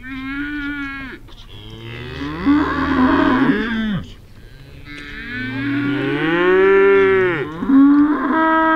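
Cattle mooing: four drawn-out moos one after another, the middle two longer, lower and bending in pitch.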